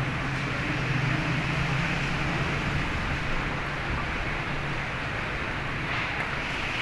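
Heavy rain and storm wind making a steady, even wash of noise, with a low hum underneath that fades in and out.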